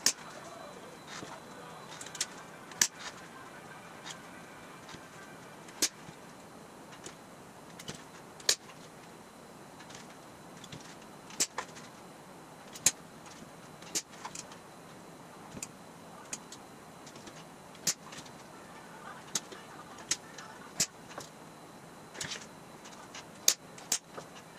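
Sharp, light metallic clicks at uneven spacing, about one every second or two, from a small hand tool working on a sheet of aluminum while rivet positions are marked out along its edge, over a faint steady hiss.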